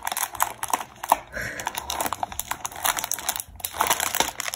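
Packaging of a small building-block kit crinkling and rustling as it is opened, with many sharp little clicks mixed in.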